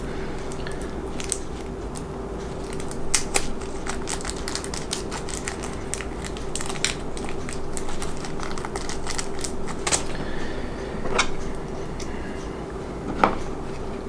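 Scattered small clicks, taps and rattles of plastic model-kit parts and a small screw being handled and fitted, with one sharper knock near the end. A steady faint hum runs underneath.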